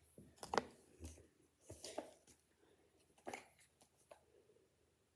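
Faint handling noises of a lotion bottle: a few short, scattered clicks and rustles, the loudest about half a second in.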